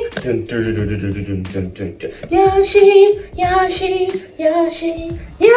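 A high-pitched sing-song voice calling out in drawn-out notes: a falling cry over the first two seconds, then three held notes, each a little lower than the last.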